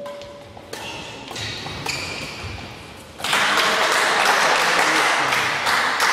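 Badminton rally in a hall: about three sharp racket strikes on the shuttlecock, each with a short ring, and shoes squeaking on the court floor. About three seconds in, a much louder wash of crowd noise with voices takes over and stays.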